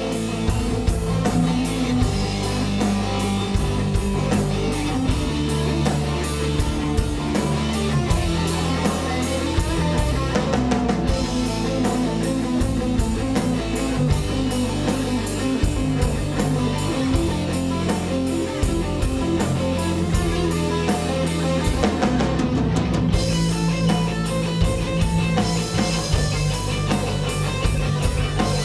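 Rock band playing an instrumental passage with no vocals: electric guitars over a drum kit keeping a steady, driving beat.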